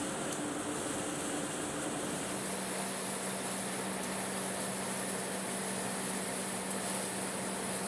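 Match-factory machinery running steadily: an even mechanical din with a low hum, which settles onto a different steady pitch about two seconds in.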